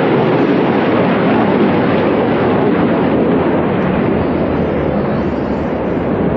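Aircraft engine noise from a plane flying over, a loud steady rushing sound.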